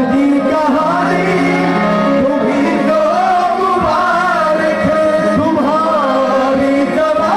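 Live music performance: a singer's wavering melodic line over held instrumental notes.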